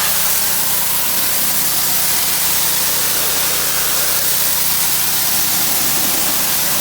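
Pressure washer running: its motor drones steadily while the high-pressure water spray hisses against the wood chipper.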